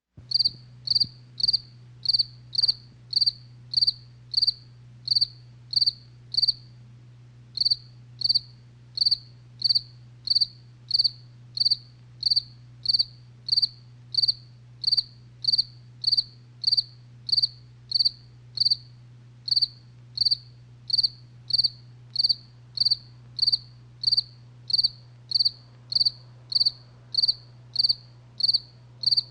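Insect chirping in short, high-pitched chirps at a steady pace of about two a second, with a brief pause about seven seconds in, over a steady low hum.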